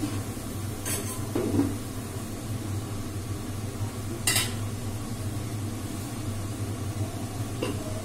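Stainless steel kitchen utensils and plates clinking and knocking about four times, the loudest about four seconds in, over a steady low hum.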